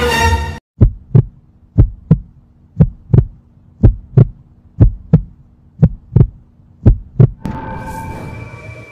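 Heartbeat sound effect: seven double thumps, about one a second, over a low steady hum. Music cuts off just before the heartbeat starts, and music with held tones comes in near the end.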